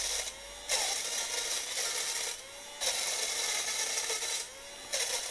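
Cozy Cozy M02 electric lint remover running at its highest speed, its spinning blades cutting pilled lint off a fleece hoodie. The cutting noise comes in repeated passes of about a second and a half each, with the motor's hum alone in the short gaps between them.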